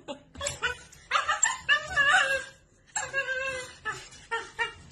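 Puppy whining and yipping in short bursts, two longer whining cries in the middle, with scattered short knocks.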